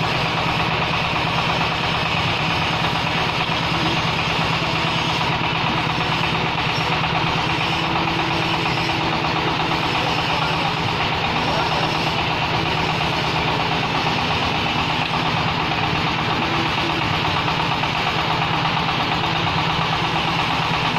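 Diesel engine running steadily with an even beat, driving a clay brick extruder press as clay is fed through it.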